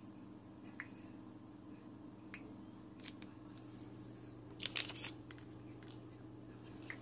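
Handling noise over a steady low hum: a few faint clicks, then a short burst of taps and rustling about two-thirds of the way through.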